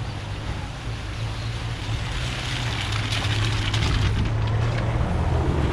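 MG F roadster driving slowly through a shallow ford: a low, steady engine hum with tyres sloshing and splashing through the water, growing louder as it comes close. The splashing is strongest about three to four seconds in.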